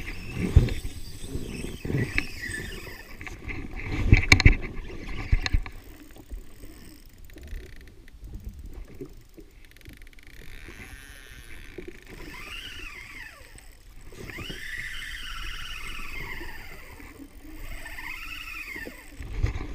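Knocks and wind rushing on the microphone, then, from about ten seconds in, a spinning fishing reel whining in repeated rising-and-falling sweeps as line runs with a hooked fish.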